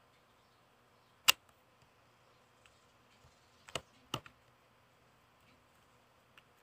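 Sharp clicks of a computer mouse, likely the eraser tool being applied. One loud click comes about a second in, then two more about half a second apart past the middle.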